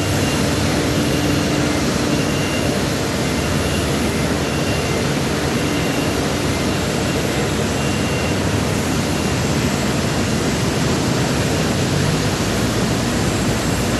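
A steady, even roar of air and machinery inside the cabin of the Airbus A380 prototype.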